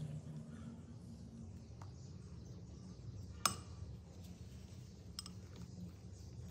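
Silicone spatula folding meringue into batter in a glass mixing bowl: one sharp clink against the glass about halfway through and a few fainter ticks, over a low steady hum.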